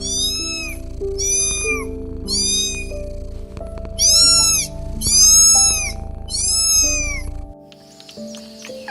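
A cat meowing six times, each meow a short call that rises and falls in pitch, over background music.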